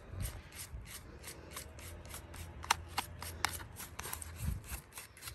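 A brush scrubbing stubborn, oily dirt off a chainsaw in quick repeated scratchy strokes, about five a second.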